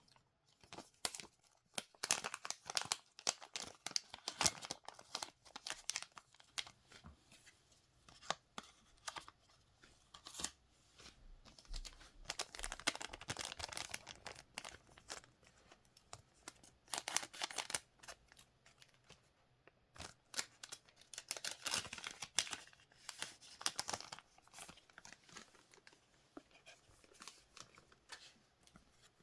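Foil trading-card pack wrappers being torn open and crinkled by hand, in several bursts of tearing and rustling with small clicks of handling in between.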